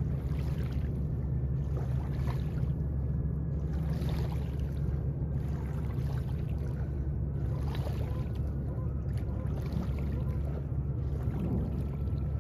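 Steady low drone of a boat engine on the river, with a faint high tone slowly falling in pitch.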